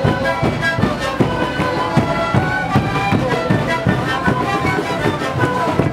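Several Andean panpipes (sikus) playing a tune together over the steady beat of a large bass drum.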